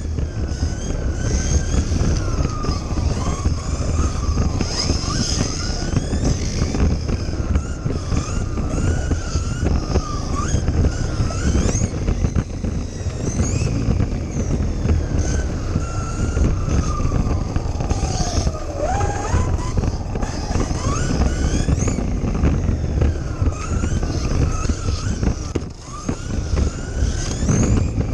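Kyosho Mini-Z RC car's small electric motor whining, its pitch rising and falling with the throttle, over a steady low rumble from the drivetrain and tyres, picked up by a camera mounted on the car itself.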